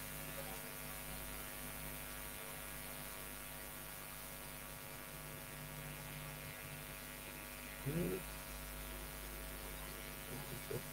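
Steady electrical mains hum on the audio line, a stack of constant low tones, with a brief voice sound about eight seconds in.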